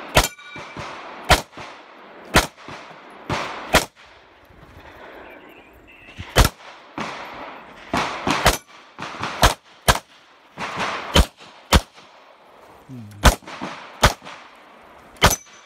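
9mm CZ Shadow 2 pistol fired about fifteen times during an IPSC stage. The shots come mostly in quick pairs, with short pauses between groups.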